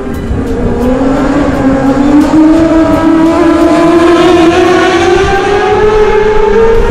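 Racing motorcycle engine at full throttle approaching, its pitch rising steadily over several seconds as it accelerates.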